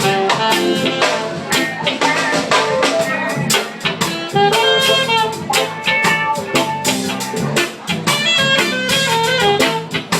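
Live reggae band playing an instrumental passage: steady drum kit hits under a melodic lead line, with horn-like held notes.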